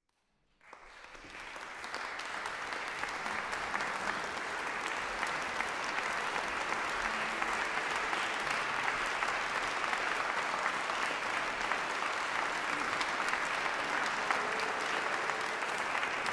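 Audience clapping, fading in over the first couple of seconds and then holding steady, as applause greeting a performer walking on.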